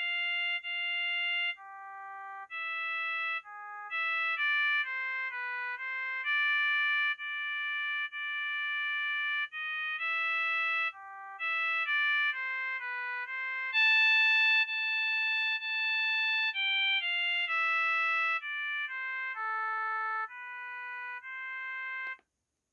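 Built-in ringtone melody of a HYKKER Classic mobile phone: a synthesized tune of single notes, one at a time, each starting sharply and fading, with one longer, louder held note about two-thirds of the way through. The tune stops shortly before the end.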